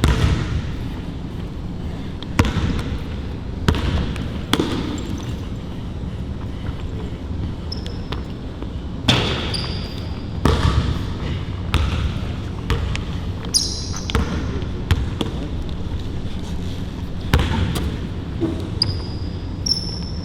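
Basketball bouncing on a court at an irregular pace during one-on-one play, with a few short high squeaks of sneakers on the floor.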